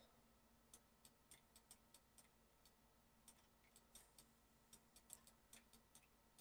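Faint, unevenly spaced clicks of a computer mouse and keyboard, about three a second, over near silence.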